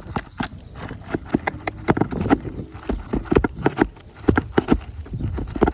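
Metal prying tool knocking and scraping under old asphalt shingles, working at roofing nails that will not come out easily because the roof is old. The sharp knocks and clicks come in an irregular run, several a second.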